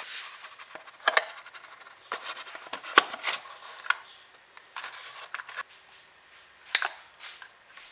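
Handling noises from a black plastic mower battery housing and the small sealed battery being slid out of it: scattered scrapes, clicks and knocks on a wooden workbench, the sharpest knock about three seconds in.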